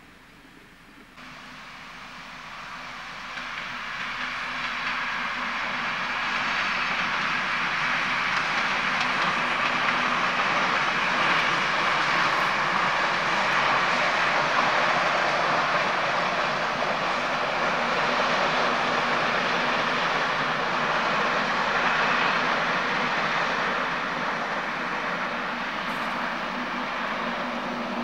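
Locomotive-hauled passenger train running past at a distance: a steady rumble of wheels on rail with a low hum beneath, swelling over the first several seconds, holding, then easing slightly near the end.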